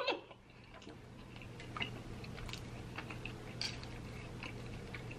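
Quiet chewing, with a few faint, scattered clicks of a knife and fork against a plate as ribeye steak is cut.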